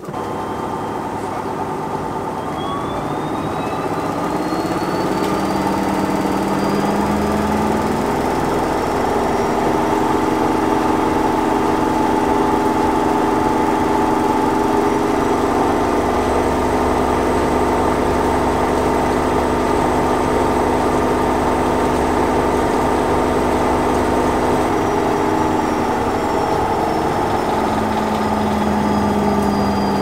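AEG 9000 Series (L9FEC966R) front-loading washing machine in its 1600 rpm spin: a steady hum with a motor whine that rises in pitch over the first several seconds as the drum speeds up, holds level, then starts to drop near the end.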